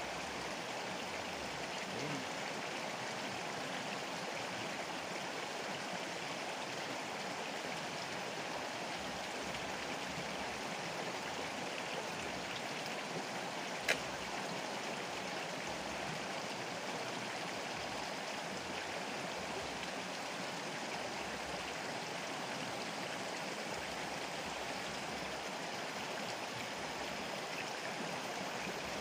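A fast-flowing river rushing steadily, with a single sharp click about halfway through.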